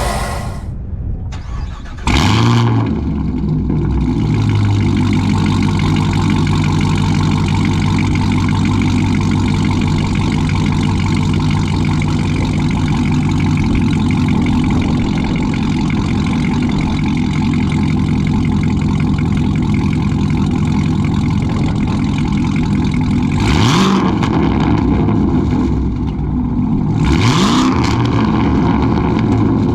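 Chevrolet Camaro ZL1's supercharged LT4 V8 on a catless exhaust starting up about two seconds in, then idling steadily. Near the end it is revved twice in quick blips.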